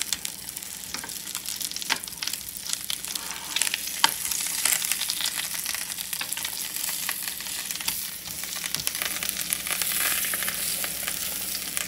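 Plant-based burger patty and sausage frying in oil in a nonstick pan: a steady sizzle and crackle, with a few sharper clicks.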